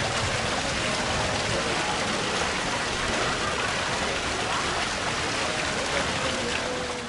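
Small decorative fountain jets splashing, a steady even hiss of falling water.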